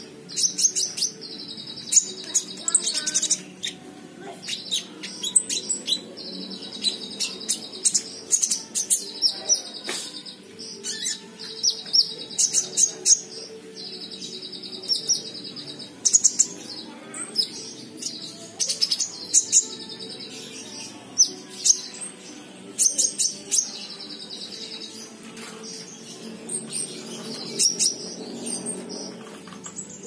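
Konin (kolibri ninja) sunbird singing in short, high, trilled phrases mixed with sharp chirps, repeated about every two seconds. It is a young bird that has begun to sing often and is still learning its song.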